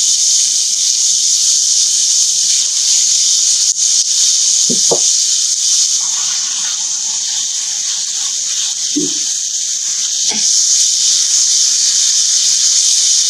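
Chicken and sliced vegetables sizzling in a hot stainless steel skillet with a steady hiss, stirred with a spatula, with a few brief scrapes.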